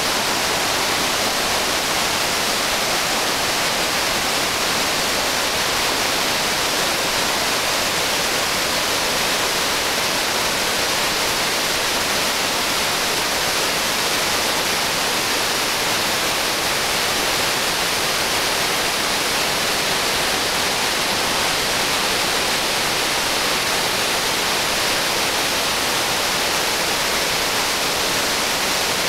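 Victoria Falls: a huge waterfall plunging into its gorge, heard as a steady, unbroken rush of water that stays even throughout.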